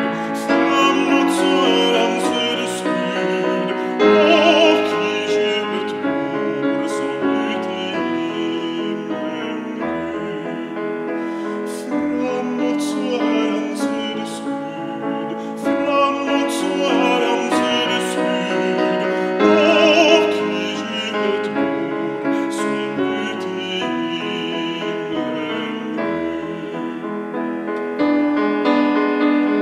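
A man singing a Swedish hymn-like song in a trained voice with vibrato, accompanying himself on a grand piano.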